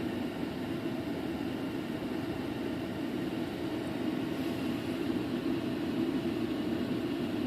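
Steady whooshing background noise, like moving air from a fan, even throughout with no distinct knocks or clicks.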